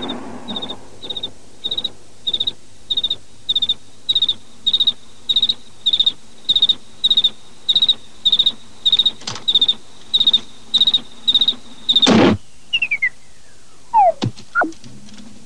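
A field cricket chirps steadily at one high pitch, a bit under two chirps a second. About twelve seconds in, the chirping stops with a loud rasp, followed by a falling squeak and then a few sharp clicks and short falling squeaks.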